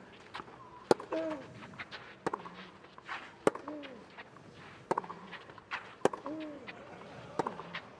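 Tennis rally on a clay court: rackets striking the ball in turn about every second and a quarter, with softer ball bounces in between. One player gives a short grunt with every other stroke.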